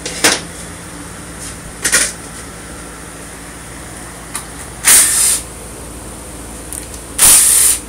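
A DeWalt cordless impact driver runs in two bursts of about half a second each, a couple of seconds apart, on bolts of a Honda BYBA automatic transmission case that is being taken apart. Before these come two short knocks of tools against metal.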